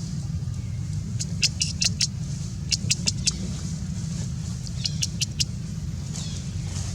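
Short, high-pitched squeaks from a baby monkey, coming in three quick clusters, over a steady low rumble.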